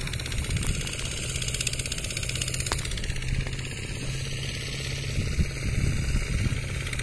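An engine idling steadily close by, with some irregular low rumbling that swells about five seconds in.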